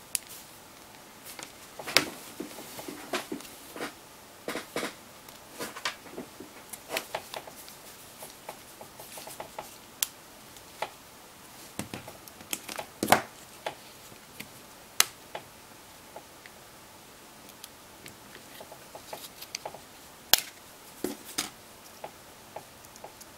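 Irregular small clicks and taps of hands and tools working on a partly reassembled LG G2x smartphone, a few sharper knocks among them.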